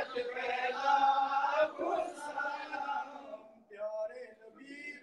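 Male voice chanting a Bangla naat, a devotional song in praise of the Prophet, in long held melodic lines. The singing drops away briefly about three and a half seconds in and comes back in shorter phrases.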